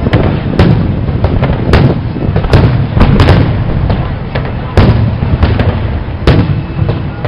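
Aerial firework shells bursting in a rapid, irregular series of about a dozen sharp booms over a continuous low rumble.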